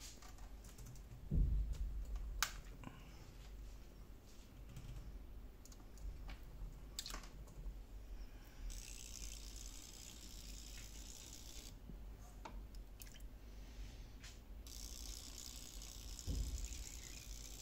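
Water in a bucket sloshing and dripping as a fishing lure with fins is handled and set in to float, with a dull knock about a second in and another near the end, a few light clicks, and two stretches of high hiss in the second half.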